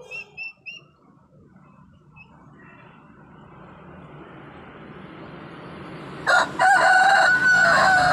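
A rooster crowing: a short note and then one long call that drops in pitch as it ends, the loudest sound, coming about six seconds in. Before it there are a few short high chirps at the start and a steady background noise that grows louder.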